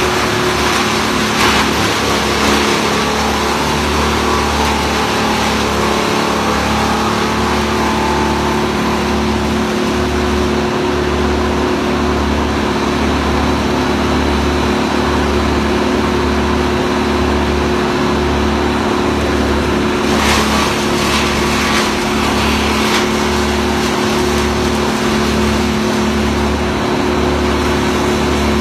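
A large engine running steadily at constant speed, the kind of work machinery used in tree removal, with a few short knocks about 20 seconds in.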